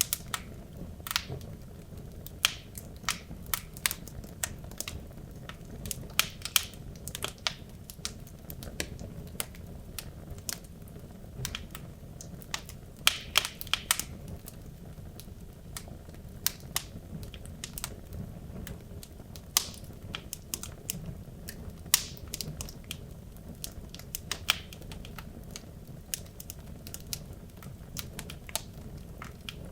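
Wood logs burning in a fireplace, crackling and popping irregularly over a low, steady hiss of the flames.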